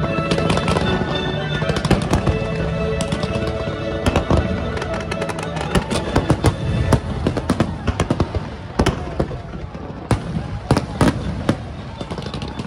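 Aerial fireworks bursting in quick, irregular bangs over music. The music is plainest in the first few seconds, and later the bangs stand out as sharper, separate cracks.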